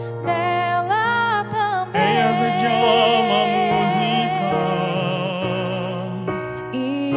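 A male and a female voice singing a duet, holding long notes with vibrato, over a band accompaniment.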